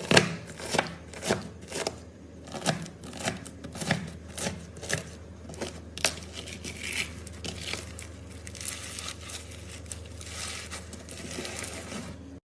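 Slime being pressed and worked by hand: a run of sharp sticky pops about twice a second, then denser crackling and rustling that cuts off suddenly near the end.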